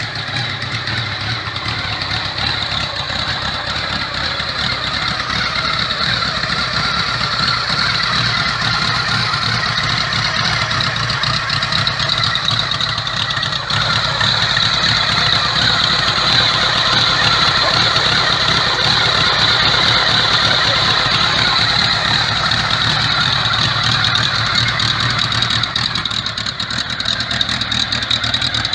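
Ariel Square Four motorcycle's air-cooled four-cylinder square-four engine idling steadily, a little louder from about halfway through.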